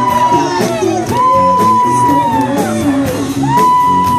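Live cover band playing, with a singer holding long high notes, one after another, over the band's chords and a steady drum beat.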